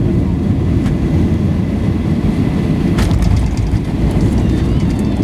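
Steady low rumble of cabin noise inside a Boeing 737-800 airliner, with scattered clicks and rattles, more of them in the second half.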